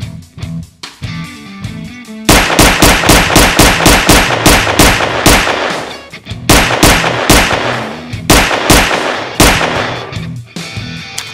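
Rapid gunfire sound effect, about six shots a second, in bursts: a long burst starting about two seconds in, then three shorter bursts, over background music with a steady bass line.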